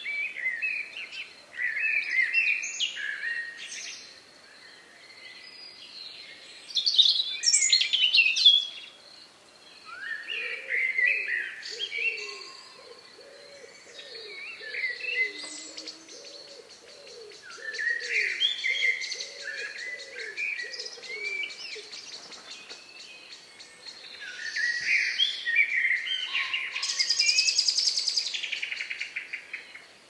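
Songbirds singing in varied chirping phrases a few seconds apart, with a fast high trill near the end. Through the middle, a steady series of short low notes comes from another bird, about one or two a second.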